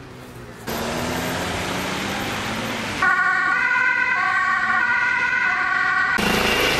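An ambulance siren sounds from about three seconds in, alternating between two pitches, after a stretch of outdoor noise. It cuts off abruptly near the end, giving way to the steady beat of a helicopter's rotor.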